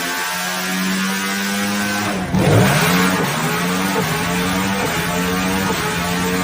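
Motorcycle engine and exhaust holding a high, steady note. About two and a half seconds in there is a loud rough burst as the revs drop and climb back, then it settles to the same steady note.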